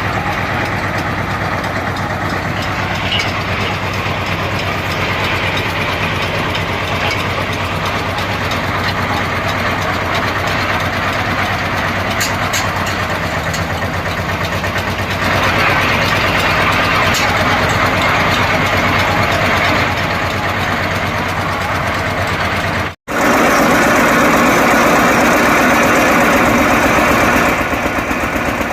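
A borewell drilling rig's engine running steadily, with a steady low hum. It grows louder about halfway through, and after a brief cut near the end it is louder still.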